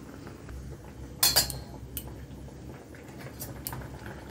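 Metal pan lid being lifted off a cooking pan, with one loud clatter that rings briefly about a second in, then a few lighter metal clinks.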